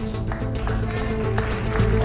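Background music with plucked guitar notes over a steady sustained backing.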